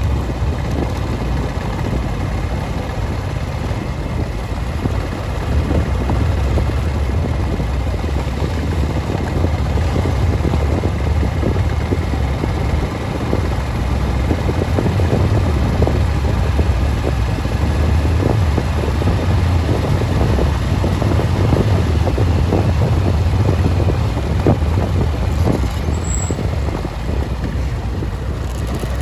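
Wind buffeting the microphone over a steady low road rumble from a vehicle moving along a brick-paved road.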